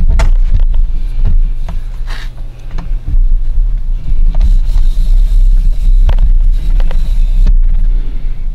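Camera and tripod handling noise: a heavy low rumble on the microphone with scattered knocks and bumps as the camera is carried and set up.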